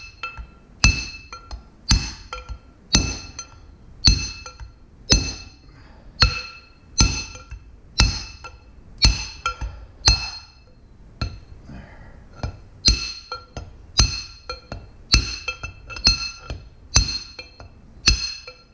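Hammer blows on a steel drift punch driving the bearing and grease seal out of a Dexter 15k trailer axle hub, about one strike a second with a short pause a little past the middle. Each blow gives a sharp clink that rings on in the steel hub.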